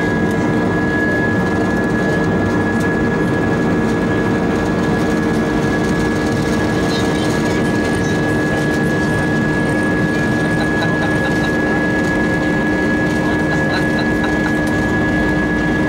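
Cabin noise of an Airbus A320-232 on the ground, its IAE V2500 turbofan engines running steadily with a steady multi-tone whine over a rumble, heard from a seat over the wing as the aircraft rolls along the runway.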